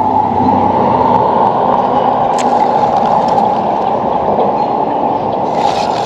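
Steady rushing of river water flowing close by, with a few faint clicks.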